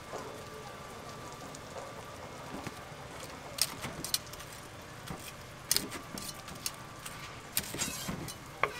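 Night-market ambience: a steady background hum broken by scattered sharp clinks and clatters, in bunches about three and a half seconds in, near six seconds and around eight seconds.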